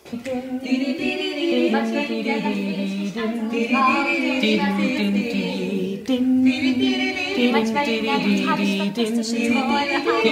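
Several voices singing together without accompaniment, holding chords in harmony, with a short break about six seconds in.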